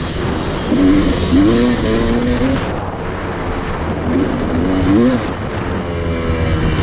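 Dirt bike engine revving as it is ridden, its pitch climbing in several pulls and dropping at each gear change, easing off a little under halfway through before one more short rev.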